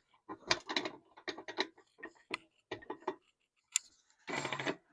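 Irregular metal clicks and knocks from the fence of a Grizzly jointer/planer combo as its lock is loosened and the fence is handled. Near the end there is a short scraping slide of about half a second.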